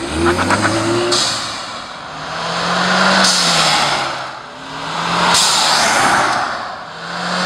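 A Ford Mustang EcoBoost's turbocharged 2.3-litre four-cylinder revs up and lets off in repeated pulls as it drives past. Each time the throttle closes, the blow-off valve, converted to vent to atmosphere, lets out a sharp hissing whoosh.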